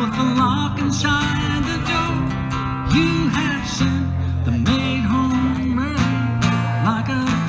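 Acoustic guitar strumming steady chords in a live performance, with a melody line over it that slides up and down in pitch.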